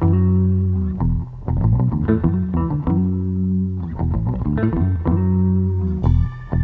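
Instrumental background music with guitar and bass: long low notes alternating with runs of quick picked notes.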